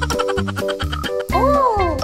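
Playful, bouncy background music with short, evenly spaced bass notes, and a comic sliding tone that swoops up and back down about one and a half seconds in.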